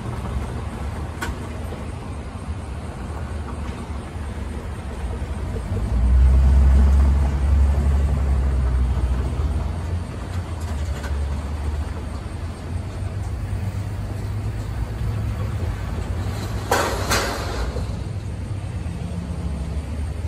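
Road traffic of cars and pickup trucks driving past, a steady low engine and tyre rumble that swells louder about six seconds in as a heavier vehicle goes by. A short hiss comes a few seconds before the end.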